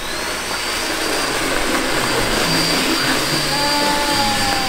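A confetti blower starts up and runs: its motor whine rises briefly to speed and then holds steady over a loud, even rush of air.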